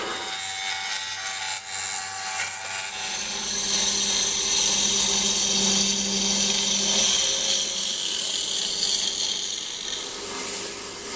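Laminated plywood drum spinning on its spindle, driven by an electric motor, while a chisel on a tool rest scrapes and cuts it true: a steady motor hum under the hiss of wood being cut. About ten seconds in, the sound changes to sandpaper rubbing against the spinning drum.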